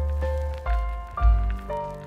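Jazz music from a record: chords changing every half second or so over a deep bass line.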